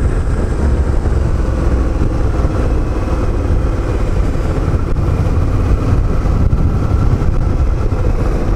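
Suzuki V-Strom 650's 645 cc V-twin engine running steadily as the bike is ridden through a corner, heard from on board.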